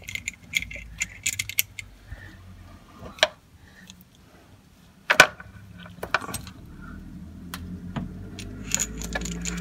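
Metal chain of a chain-type oil filter wrench clinking and rattling as it is worked around an ATV's oil filter to loosen it: scattered clicks, with a couple of sharper knocks about three and five seconds in.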